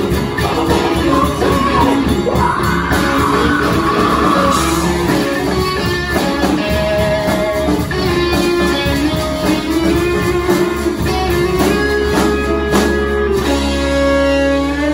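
Live rock band playing with a lead singer: electric guitars, drums and keyboards through amplifiers. Near the end the band settles onto a held, ringing chord.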